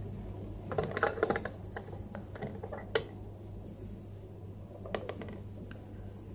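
Hard plastic toy pieces clicking and knocking together as they are handled: a quick run of clicks about a second in, one sharp click about three seconds in, and a few more around five seconds.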